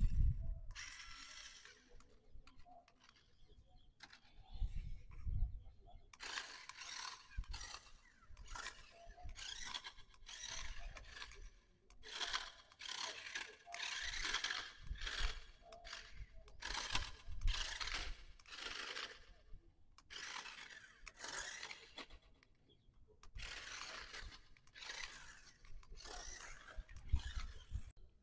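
Toy RC rock crawler's small electric motor and plastic gearbox running in repeated short bursts, stopping and starting, as it is driven over concrete with its rubber tyres scraping. A few low thumps come near the start and about five seconds in.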